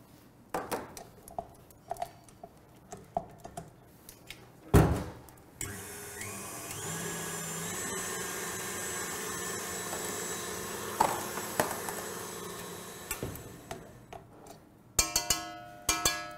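Electric stand mixer whisking egg yolks: its motor runs steadily for about eight seconds, stepping up in speed in its first second or two, then stops. Before it starts there are scattered knocks and clicks with one loud knock, and near the end a few ringing metallic clanks.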